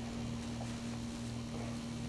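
A steady low hum with a faint, evenly pulsing drone beneath it. Two faint, short soft sounds come about half a second and a second and a half in.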